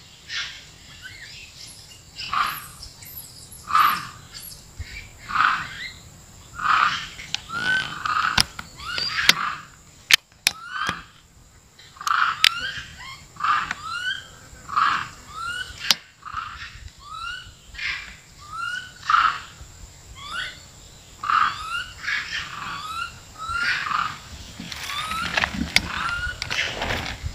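Long-tailed macaques calling over and over, a short rising call about every second, some overlapping, with a few sharp clicks in between.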